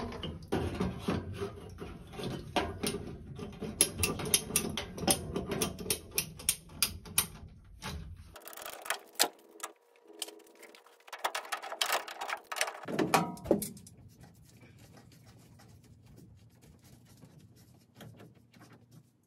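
Rapid ratcheting clicks of a hand PVC pipe cutter biting through a PVC condensate drain pipe, with rattling as the pipe is worked. About eight seconds in come sharper clicks and knocks as the cut pipe and fittings are pulled away. The last few seconds hold only a faint steady hum.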